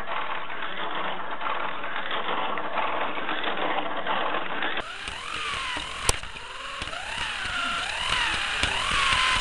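Slot car's small electric motor buzzing and its pickup rattling in the track slot as it laps. About five seconds in the sound changes to a whine that rises and falls in pitch about once a second, with one sharp click just after.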